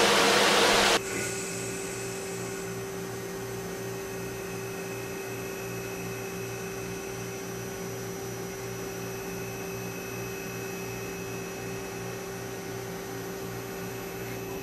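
Doosan Puma 2600SY CNC lathe running. A loud hiss cuts off about a second in, leaving a steady machine hum with a few held whining tones and a faint regular pulsing underneath.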